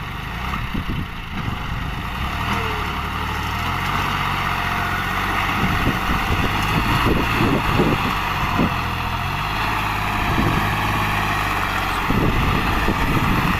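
John Deere 5103 tractor's three-cylinder diesel engine running steadily, getting a little louder from about four seconds in.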